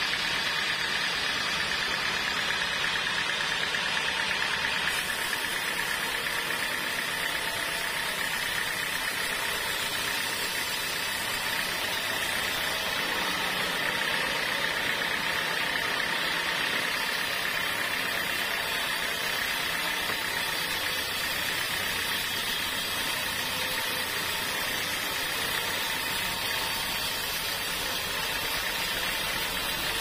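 Band sawmill running steadily as its blade cuts through a teak log: an even mechanical noise with a steady high whine.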